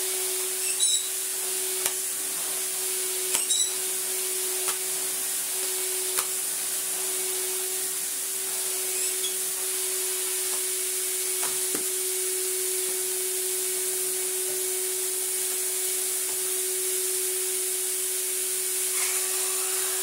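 Electrolux Slimline Z1165 canister vacuum cleaner running steadily in its unrestored state, a constant motor hum over rushing air. A few sharp knocks and clatters from the metal-based floor tool come in the first few seconds, with one more about halfway through.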